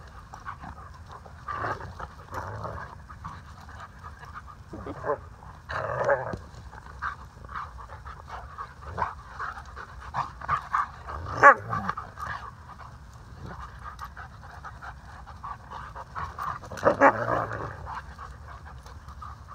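Two Alaskan Malamutes play-wrestling: steady panting broken every few seconds by short dog vocalizations, the loudest about halfway through and another cluster near the end.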